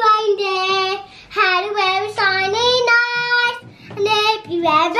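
A young girl singing a song on her own, unaccompanied, in phrases with long held notes and short pauses for breath between them.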